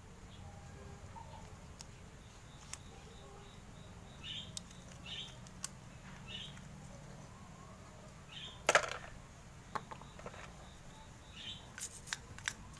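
Light handling of small carburetor parts: a few soft scrapes and sparse sharp clicks, the loudest about nine seconds in, over a faint low hum.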